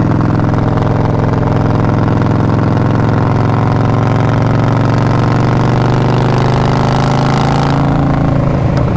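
Heavy cruiser motorcycle's loud engine and exhaust running steadily under way. The note creeps up slightly over several seconds, then drops back near the end.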